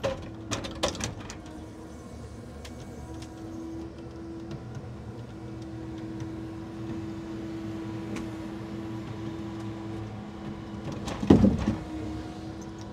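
Truck-mounted timber crane's hydraulics running with a steady hum as the grapple moves a bundle of sawn timber, with a few clicks in the first second. About eleven seconds in there is a short clatter of knocks as the timber is set down on the stack.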